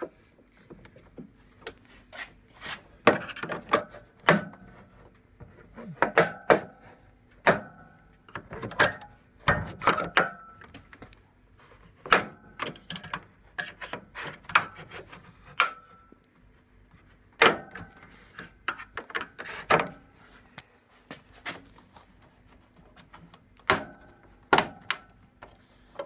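Black plastic inner door trim of a Panasonic microwave being prised off by hand: irregular sharp plastic clicks and snaps as its clips pop free, in clusters with short pauses, along with knocks and rubbing from handling the door.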